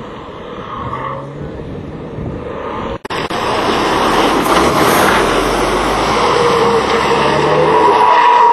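Quieter vehicle noise from a drifting car, then, after a sudden cut about three seconds in, a MAN tractor unit sliding around a bend gets louder. Its diesel engine runs under load, and from about the middle a steady tyre squeal sets in.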